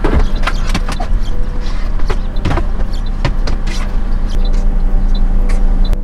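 Irregular plastic clicks and knocks as a folding plastic crate and a plastic step stool are handled and set up as a table inside a car, over a steady low hum.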